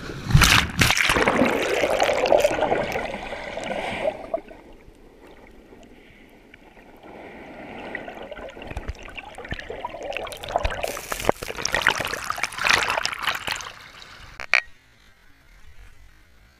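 Sea water washing and splashing around a camera at the surface: loud rushing surf for the first few seconds, easing off, then building again before a sharp click and a sudden drop near the end.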